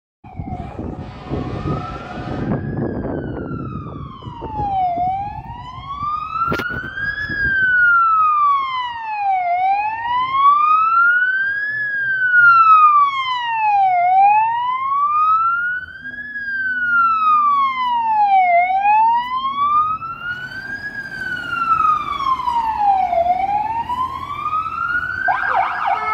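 Fire engine siren in a slow wail, rising and falling about every four and a half seconds.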